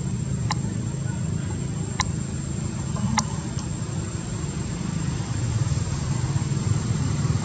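Steady low rumble with a constant thin high-pitched whine, broken by three short clicks about half a second, two and three seconds in.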